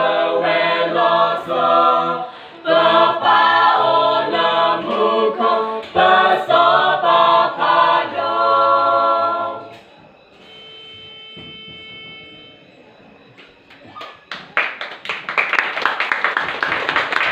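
A small group of young women and men singing together a cappella, without instruments; the song ends about ten seconds in. After a short lull, clapping breaks out near the end.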